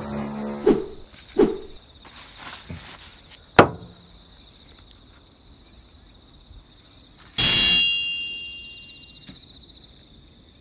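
A few light knocks and taps, then about seven seconds in a single loud, bright metallic ring that fades over about a second and a half.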